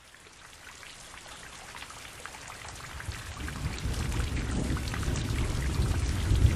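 Rain falling, with many small drop ticks, and a low rumble of thunder that swells in from about halfway and keeps getting louder.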